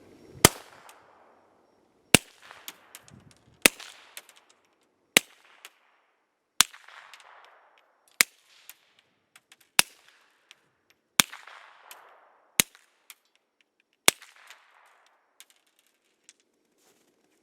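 Suppressed .22 handgun fired ten times at a steady pace, about one shot every second and a half. Each sharp report is followed by a short echoing tail. The suppressor makes it quieter, but it is still noisy.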